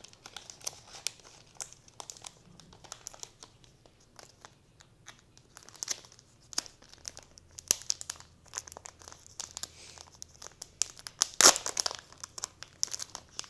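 Clear plastic bag crinkling and rustling as it is worked open to get the pen out, with a loud burst of crinkling near the end.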